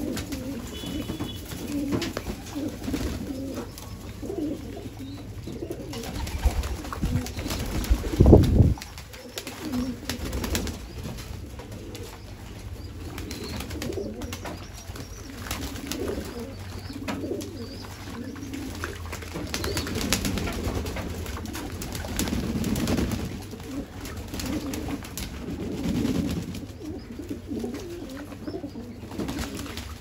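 Pigeons cooing over and over in low, soft calls, with faint scattered clicks and one loud, low burst of noise about eight seconds in.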